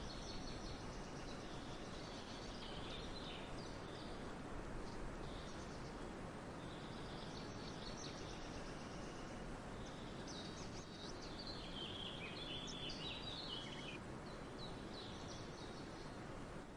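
Several small birds chirping and twittering in quick, short calls while squabbling over food, over a steady background hiss.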